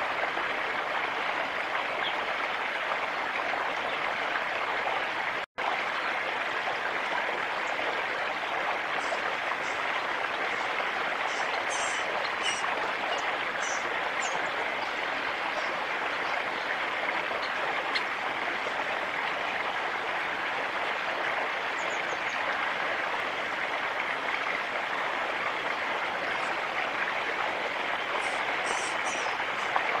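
A steady rushing noise like running water, with a few short, faint high bird chirps, a cluster of them near the end. The sound cuts out for an instant about five seconds in.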